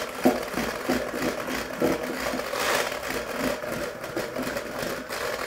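Electric hand whisk running, its twin beaters creaming butter, peanut butter and sugar into a soft, thick mix in a glass bowl. A steady motor whir with irregular knocks as the beaters churn the mix.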